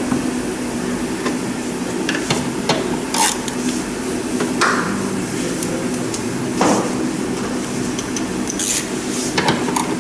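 Socket wrench working the air filter housing bolts: scattered metallic clicks and short scrapes at irregular intervals, over a steady low hum.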